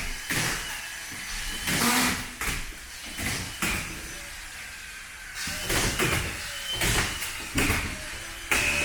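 Drywall ceiling work: irregular knocks, bangs and scraping noises from sheets and tools being handled, about one every second or so.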